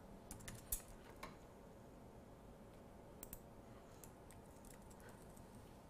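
Near silence with a few faint clicks from a computer mouse and keyboard, scattered through the first second and again around the middle.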